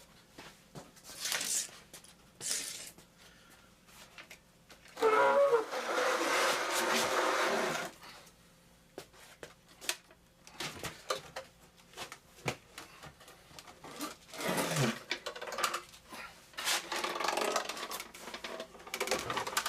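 Handling noises while unpacking a mini milling machine: scattered knocks and clicks, with a loud rustling, scraping noise lasting about three seconds from about five seconds in, starting with a short squeak.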